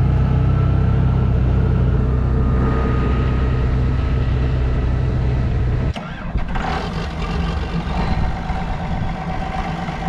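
Tractor engine running steadily with a deep drone. About six seconds in there is an abrupt change to a lighter, noisier engine sound.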